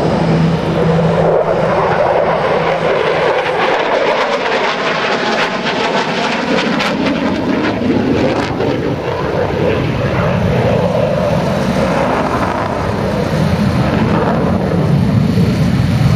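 Loud, steady rushing noise of an F-16 Fighting Falcon's jet engine as the fighter pulls a hard high-G turn overhead. From about four to nine seconds in, the noise takes on a sweeping, wavering tone as the jet passes.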